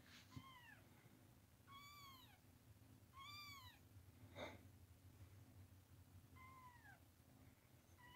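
Young kitten mewing: four or five short, high-pitched cries, each rising then falling, about a second and a half apart, with a brief breathy puff about halfway through.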